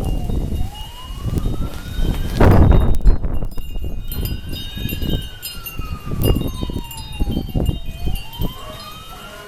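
A siren wailing in the distance, its pitch rising and falling slowly, about once every five seconds. Gusting wind buffets the microphone, loudest a little over two seconds in, and wind chimes ring high above it.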